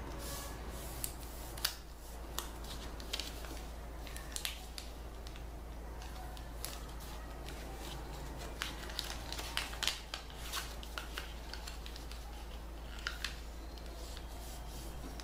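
A sheet of origami paper being folded by hand: scattered short crinkles and sharp crease sounds as fingers press and run along the folds, over a steady low hum.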